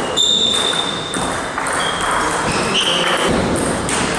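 Table tennis play: a celluloid ball striking bats and the table, heard as a few short high pings over steady noise in a large hall.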